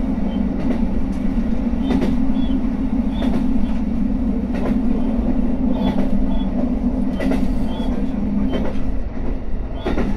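JR Hokkaido H100 diesel railcar running along the line: a steady engine drone with wheel clicks over the rail joints about every second and a quarter. The drone eases a little near the end.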